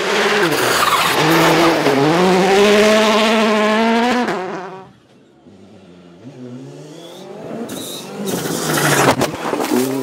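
Volkswagen Polo R WRC rally car's turbocharged four-cylinder engine at full throttle on gravel, revving up and dipping through gear changes, then fading away after about four and a half seconds. A second rally car then approaches, growing louder, with a few sharp cracks near the end.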